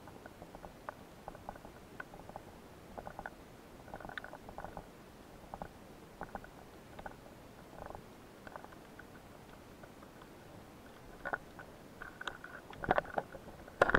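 Underwater sound heard through a submerged camera: scattered short clicks and crackles, growing more frequent and louder in the last few seconds, with a couple of sharp knocks near the end.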